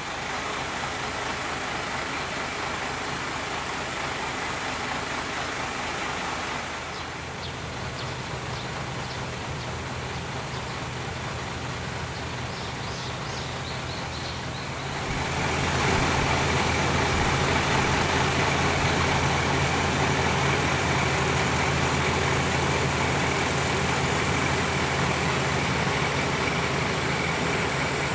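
Kiha 35-series diesel railcars (Kiha 38 and Kiha 30) running at low speed, with a steady diesel engine hum. It gets clearly louder about halfway through as the cars come past close by.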